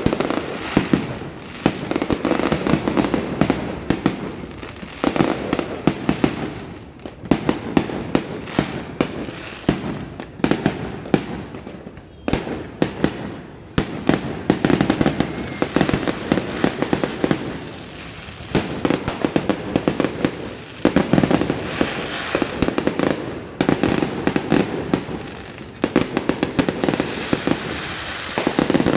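Aerial fireworks going off continuously: clusters of sharp cracks and booming bursts every few seconds, with crackling and rumbling echoes between them.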